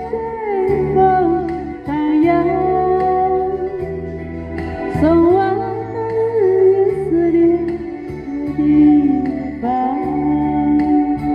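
A woman singing into a handheld microphone over a backing track, holding long notes that slide up into pitch at the start of each phrase.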